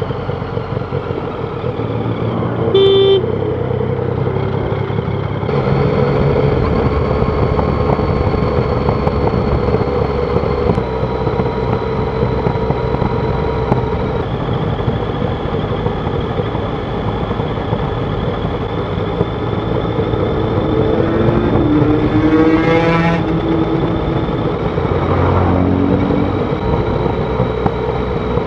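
Yamaha Tracer 900's 847 cc inline-three engine running under way on its stock exhaust, its note holding steady and shifting in a few steps. A short horn toot sounds about three seconds in, and the engine pitch rises toward the end as it accelerates.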